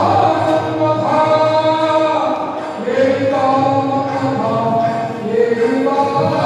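Several voices chanting in unison, a slow chant of long held notes that step from pitch to pitch.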